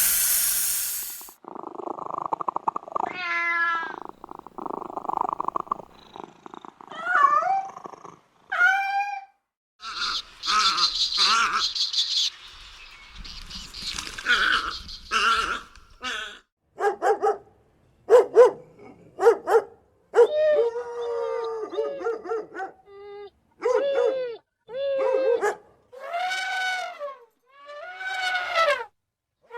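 A run of short animal calls in quick succession, most of them cries that rise and then fall in pitch, with a noisier, hissing stretch in the middle.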